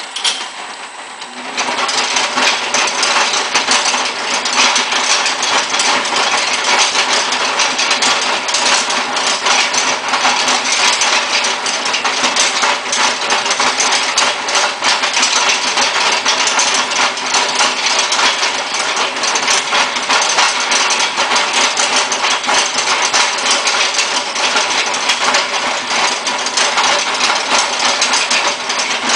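Miniature drill rig's electric drill motor spinning the drill rod while the bit grinds into a rock sample under steady weight on bit. A loud, gritty grinding sets in about a second and a half in and then holds steady.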